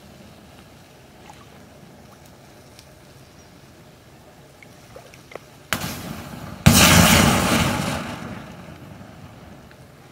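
Disposable butane lighters burning in a fire, crackling with small scattered pops. About six seconds in a lighter bursts with a sharp pop, and a second later a louder burst and rush of flame that fades over about two seconds.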